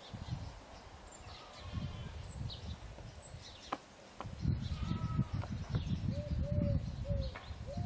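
Outdoor ambience: birds chirping over a low, gusty rumble of wind on the microphone that grows louder about four seconds in. From about six seconds a bird repeats a short call, roughly three notes a second.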